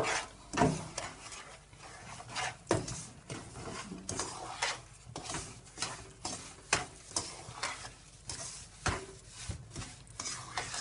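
Wooden spatula stirring and scraping wet, thickening semolina halwa in a nonstick frying pan, with irregular scrapes and knocks against the pan every half second or so over a light sizzle as the roasted semolina in oil takes up the sugar.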